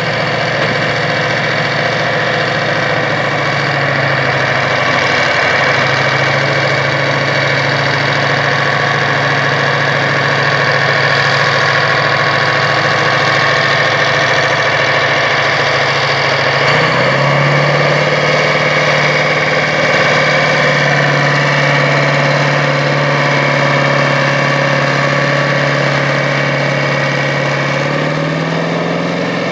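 International 4786 four-wheel-drive tractor's diesel engine running steadily under load while pulling a disc harrow. Its pitch steps up about two-thirds of the way through and rises again near the end.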